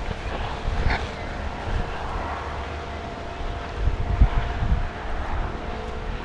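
Wind buffeting the microphone in irregular low gusts, with a faint steady hum underneath.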